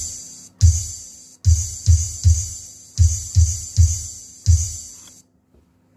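Electronic hadroh bass drum sound from a digital percussion module, triggered from its bass pedal: about eight deep booming strikes in a loose rhythm, each with a bright hissy top.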